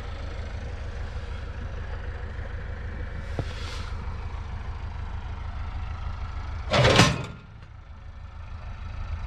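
MTZ-82 tractor's four-cylinder diesel idling steadily, with a faint click about three and a half seconds in and a short loud clatter about seven seconds in.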